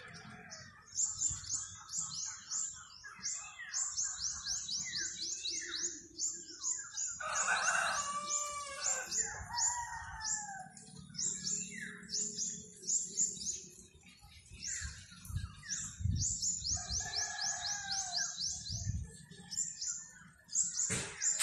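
Birds chirping: runs of quick, high chirps repeat over and over. Lower, fuller calls join about a third of the way in and again late on, over a faint low rumble.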